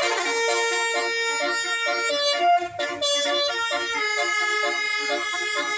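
Indonesian bus 'telolet' musical horn, a set of air horns sounding a quick tune: one note held for about two seconds, then a run of short notes.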